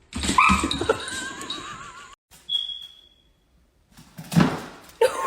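An animal call with a quavering, wavering pitch that cuts off abruptly about two seconds in. Near the end, after a short noisy burst, a similar quavering call begins.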